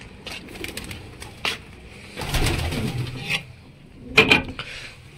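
Domestic pigeons cooing, with scattered light clicks and rustles, and a sharp knock about four seconds in.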